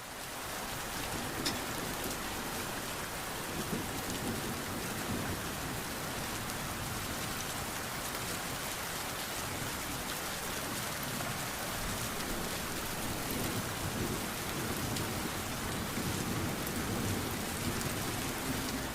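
Steady rain falling, with a low shifting rumble underneath and scattered drop clicks.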